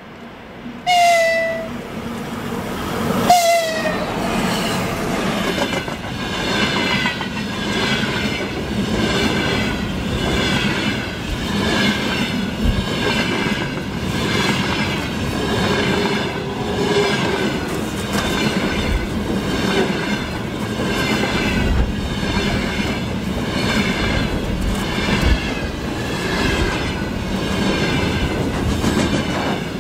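Freight train passing behind a 2ES6 "Sinara" electric locomotive: two short horn blasts, about a second and about three seconds in, then the wagons rolling by with a steady clickety-clack of wheels over the rail joints.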